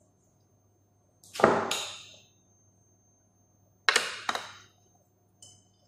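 Kitchen utensils knocking against dishes while ingredients are measured and added: one loud knock with a short ring about a second and a half in, two sharp knocks close together about four seconds in, and a faint metallic ping near the end.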